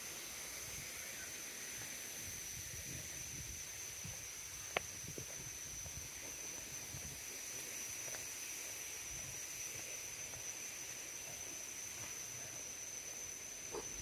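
A steady high-pitched insect drone over faint low rumble, with one sharp click about a third of the way in.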